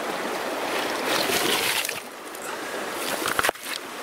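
River water running over a stony bed, with rustling and a couple of sharp knocks of stones as a rock is pulled from the gravel; the sound drops off suddenly about three and a half seconds in.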